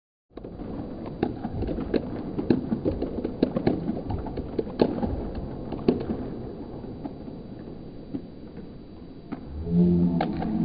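Sports-hall ambience: a steady background hum with irregular sharp knocks and thuds. Near the end it turns louder and pitched, then cuts off suddenly.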